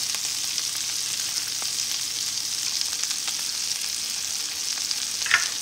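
Brussels sprouts, red onion and banana peppers sizzling in bacon fat in a skillet: a steady high hiss with faint scattered ticks.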